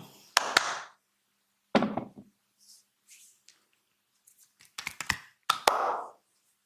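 Sharp percussive hits from a hands-on massage, in about four groups: each a crack or slap followed by a short rustle of hands on skin. A double hit comes near the start and a cluster near the end.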